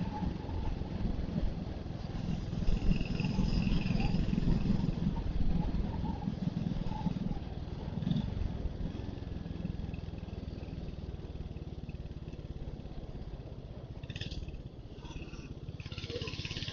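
Royal Enfield Hunter 350's 349 cc single-cylinder engine running while the motorcycle is ridden, with a steady rapid pulse. It is louder for the first several seconds, then eases off about halfway through as the throttle comes off.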